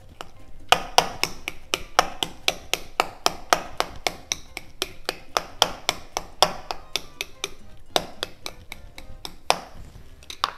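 Knife chopping on a cutting board, about four quick strikes a second, with soft background music under it.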